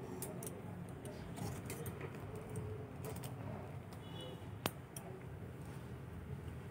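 Red lentils cooking in water in a metal wok, stirred with a metal spoon: scattered light clinks and scrapes of the spoon on the pan over a steady low rumble, with one sharp tap about four and a half seconds in.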